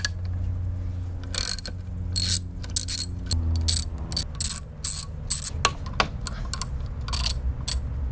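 Hand socket ratchet clicking in quick, irregular runs as the bolts holding an outboard anode are turned out.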